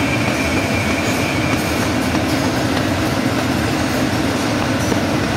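Overhead poultry shackle conveyor running, a steady mechanical clatter of chain and trolleys with a low drone underneath.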